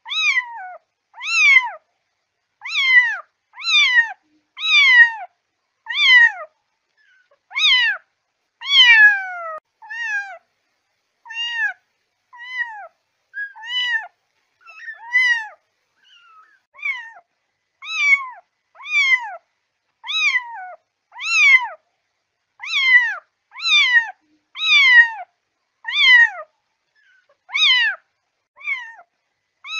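Kitten meowing over and over, about once a second with a few short pauses, each meow high-pitched and falling in pitch: a kitten's calling cry, the kind that draws adult cats.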